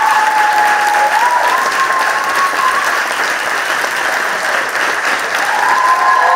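Audience applauding steadily, with one long held cheer over the clapping in the first half.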